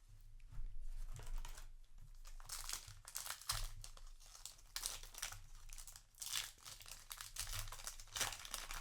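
Yu-Gi-Oh! trading cards and their foil booster pack wrapper being handled, with repeated crinkling and rustling strokes.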